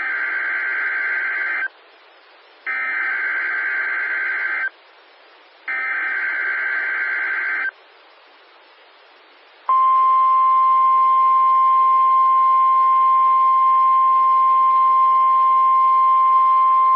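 NOAA Weather Radio weekly test signal heard over a radio receiver. First come three roughly two-second bursts of buzzing SAME digital header data, each a second apart, with faint hiss between them. Then, about ten seconds in, the steady single-pitch 1050 Hz warning alarm tone sounds and holds; it is the test of the alarm that switches on weather-alert receivers.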